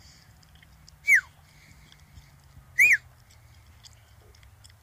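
Two short, sharp whistles about two seconds apart: the first drops in pitch and the second rises and falls. A person whistling to call a dog.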